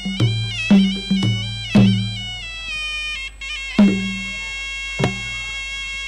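Traditional Khmer boxing ring music: a sralai reed oboe playing a continuous, nasal, wavering melody over irregular beats of skor drums, with the drums dropping out for a moment mid-way.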